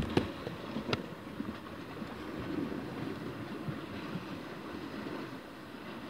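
Sea washing against rocks with wind buffeting the microphone, a steady, even rush; two sharp handling knocks in the first second.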